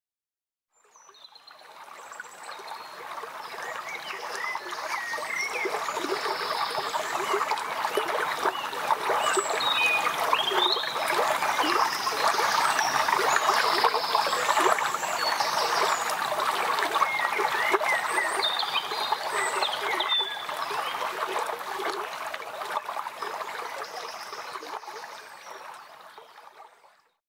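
Water flowing and gurgling along a narrow, stone-lined forest ditch, with birds chirping over it. The sound fades in over the first few seconds and fades out near the end.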